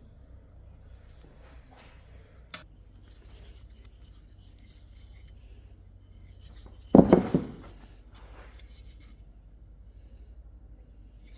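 Quiet rubbing and handling of wooden workpieces, a single sharp click, then a quick cluster of several knocks about seven seconds in.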